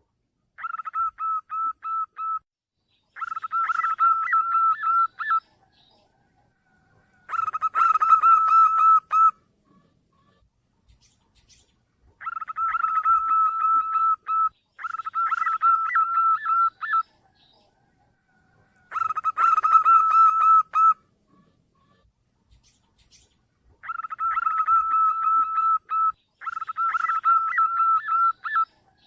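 Zebra dove (perkutut) song played as a lure call: three-part phrases of rapid stuttering coo notes, each part about two seconds long. The set repeats in the same pattern about every twelve seconds, with short silences between.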